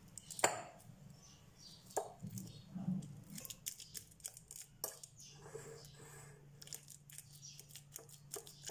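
Metal fork mashing bananas in a glass bowl, the tines clicking irregularly against the glass.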